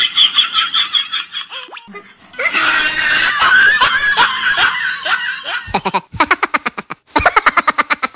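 Children laughing, with a stretch of excited, high-pitched squealing in the middle; in the last couple of seconds the laughter comes in quick, evenly spaced bursts.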